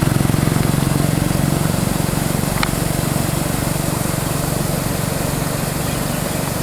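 Small motorcycle engine running steadily, its sound slowly fading.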